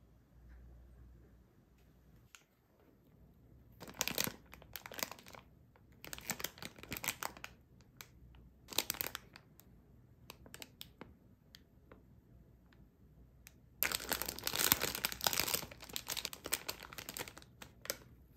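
Thin plastic wrapper of a packaged sweet bun crinkling in the hands in several short bursts, then a longer, louder stretch of crinkling near the end as the bag is opened and the bun taken out.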